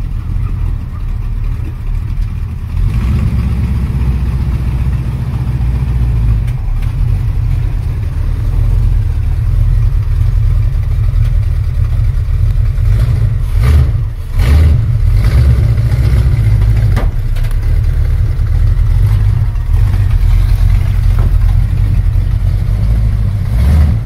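Lifted Chevrolet pickup's engine running with a deep, steady low rumble that grows louder about three seconds in. A few short knocks come in the second half.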